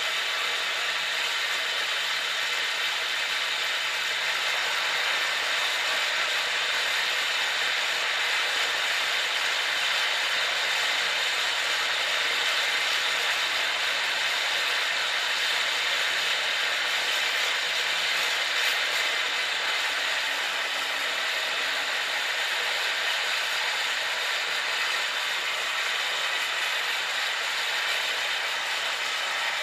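Steady, loud engine and airflow noise inside the cabin of a military transport aircraft with its rear cargo ramp open, its engines running.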